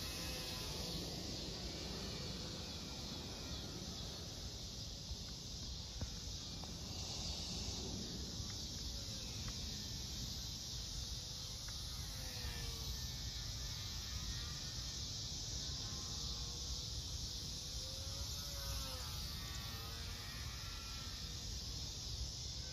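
Distant whine of a small RC plane's motor, rising and falling in pitch as the plane flies about, over a steady high chirring of insects.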